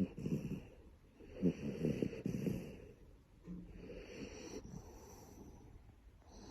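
A sleeping Shiba Inu snoring: a fluttering snore right at the start, a louder one from about one and a half seconds in, then a softer breath with a low hum and quieter breathing.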